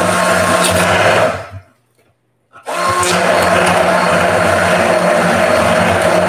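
Handheld immersion blender running in a stainless steel saucepan, pureeing cooked sweet potatoes. It runs for about a second and a half and trails off, stops for about a second, then starts again and keeps running steadily.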